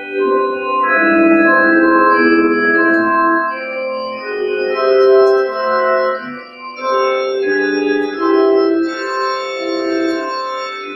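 Organ music: slow, held chords that change every second or so.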